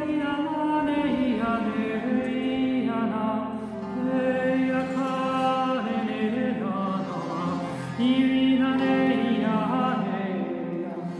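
Wordless intuitive singing by a woman: long, held chant-like notes that glide between pitches, with a new, louder phrase starting about eight seconds in.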